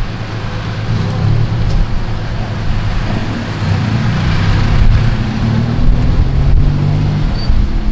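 Tuk-tuk engine running as the three-wheeler drives along a street, heard from the open passenger cab, with its note shifting up and down with the throttle, amid surrounding traffic noise.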